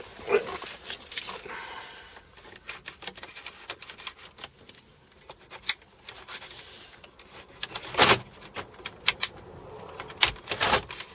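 Scattered light clicks and knocks of hard objects being handled, with louder knocks about eight seconds in and again near the end.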